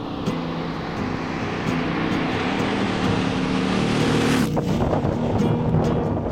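A V-twin touring motorcycle approaching and passing close by on the road, its engine note climbing as it nears. About four seconds in there is a short rush of air as it goes past, and then the note drops as it moves away.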